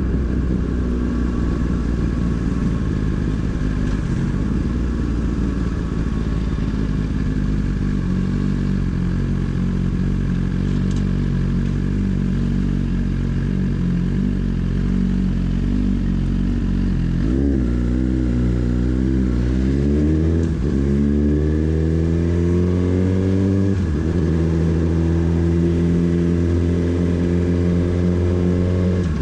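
Motorcycle engine running at a steady pitch. About two-thirds of the way in, the note drops and climbs twice, as the bike accelerates up through the gears, then settles into a steady note.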